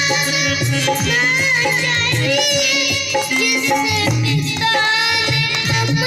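A young boy singing a Hindi bhajan into a microphone, amplified through a PA, with folk-style percussion accompaniment.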